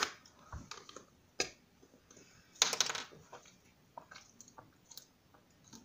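A plastic drink bottle being handled and its screw cap twisted open: a string of sharp plastic clicks with a louder crackling cluster about two and a half seconds in, then fainter small clicks while it is drunk from.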